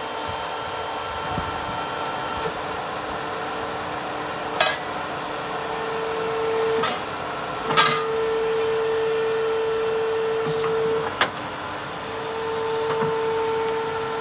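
Husqvarna DXR 140 remote-controlled demolition robot running: a steady whine that cuts out and back in several times as it works. It is joined by a few sharp clanks and two short spells of high hissing.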